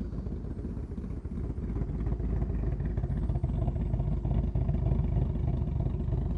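2020 Ford Mustang's exhaust idling with a lumpy, choppy lope from a 'Ghost Cam' tune, which mimics an aggressive camshaft. The idle has settled lower, so it is chopping even more.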